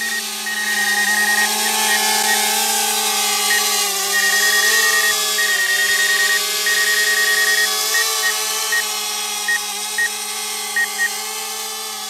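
DJI Mavic Air quadcopter hovering and climbing away, its propellers giving a steady buzzing whine that wavers slightly in pitch and grows fainter toward the end. Rapid high beeps come in runs through the first half, then singly, typical of the flight controller's obstacle warning.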